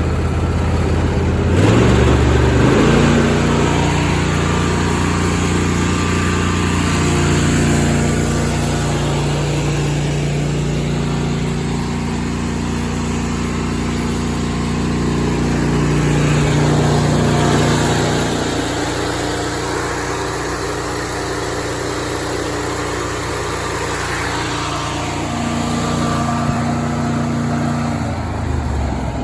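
John Deere D160 lawn tractor's V-twin engine running; it speeds up about two seconds in, holds a steady higher speed, and drops back to idle near the end. It runs smoothly on a freshly cleaned carburetor.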